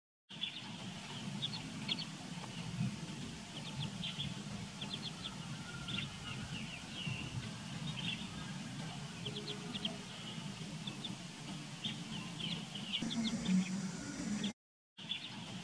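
Ducklings peeping: short, high-pitched chirps in clusters that come and go, over a low steady rumble. The sound drops out briefly near the end.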